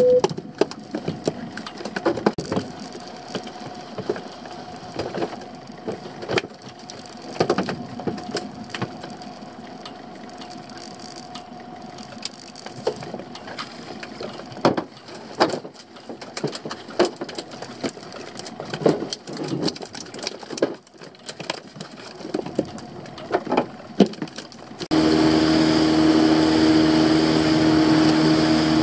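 Irregular knocks and taps of fishing tackle and fish being handled aboard a small open boat. About 25 seconds in, an outboard motor starts running steadily as the boat gets under way.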